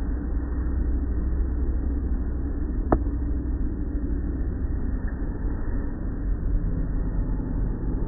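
Automatic car wash running: the soft-cloth mitter curtains and water spray working over a car in a steady low rumble of machinery and wash noise. One sharp click about three seconds in.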